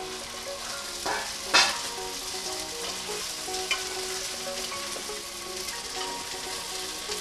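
Flat green beans (papdi) sizzling and frying in hot oil in a non-stick kadai as they are stirred with a wooden spatula. A few sharp clacks of the spatula against the pan break through the steady sizzle, the loudest about a second and a half in.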